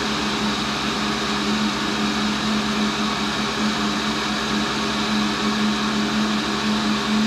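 Tool and cutter grinder's motor running with its abrasive wheel spinning, a steady, even hum with no load on the wheel.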